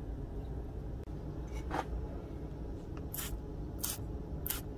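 Four short, sharp scraping sounds, roughly a second apart, over a steady low background rumble.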